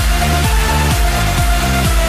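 Electronic dance music with a steady beat and held synth tones.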